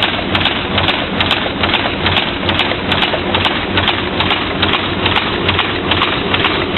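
Chaff cutter running steadily, its blades chopping with an even clatter of about three beats a second over a dense, continuous rushing noise.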